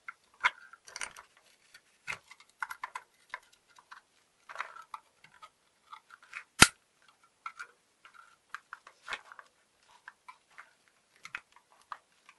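A thin metal pick scraping and picking at the inside of an old gate lock's case, working caked dirt loose: short, irregular scratches and ticks, with one sharp click about six and a half seconds in.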